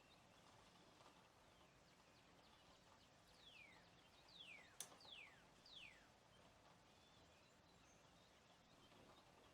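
Very faint hiss with a run of four short whistled calls, each sliding steeply down in pitch, in the middle, like a bird calling, and a single sharp click among them.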